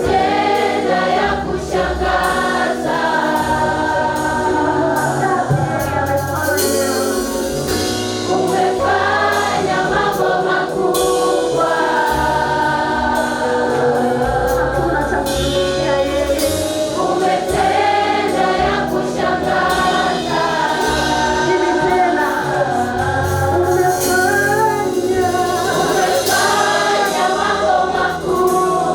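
Church choir singing a gospel praise song with instrumental backing and a moving bass line.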